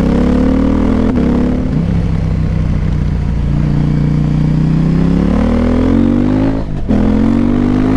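KTM 890 Adventure R parallel-twin engine through a Wings slip-on exhaust with the dB killer removed, pulling hard under acceleration: the pitch climbs, drops back at an upshift about two seconds in, climbs again, and cuts out briefly for another upshift near the end.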